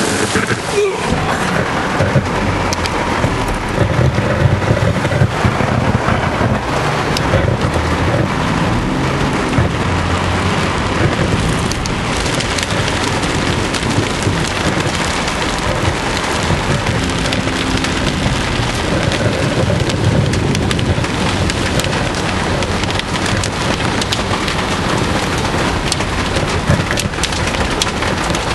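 Heavy thunderstorm rain beating steadily on the roof and windscreen of a large 4WD, heard from inside the cabin. It is a dense patter of many small impacts over a continuous low rumble.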